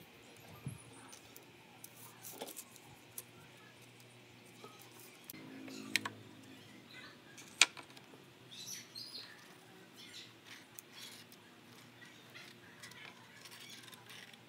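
Quiet workbench handling: light taps and clicks of a pen, tape measure and small metal handle plate on a pine board, with two sharp clicks about six and seven and a half seconds in, the second the loudest.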